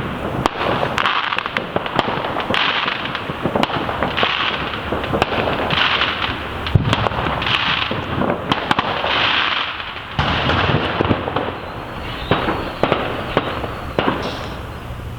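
Homemade 90-gram firework burning with a loud hiss that surges about every second and a half, scattered with sharp crackling pops. The surges die down about eleven seconds in.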